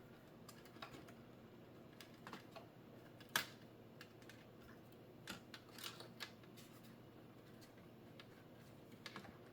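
Faint scattered clicks and ticks of fingers working a small plastic ribbon-cable connector tab, with one sharper click about three and a half seconds in, over near silence.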